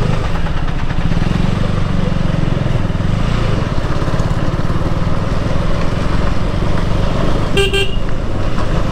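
Motorcycle engine running steadily under the rider, heard from on board. About three-quarters of the way through, a vehicle horn gives one short toot.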